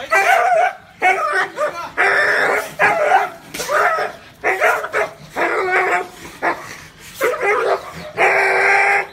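A dog barking over and over in quick, high-pitched barks and yelps, a few of them drawn out longer.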